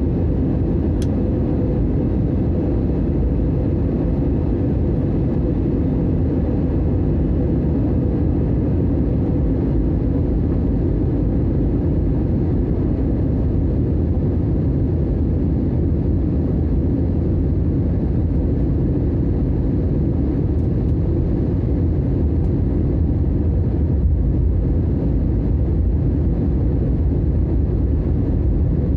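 Steady cabin noise of a jet airliner during its descent: engine drone and rushing airflow heard from inside the cabin, with a faint steady hum.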